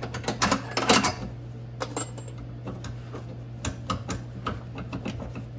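Hand ratchet clicking in short, irregular runs as bolts are worked loose, with a louder cluster of clicks and knocks about half a second to a second in.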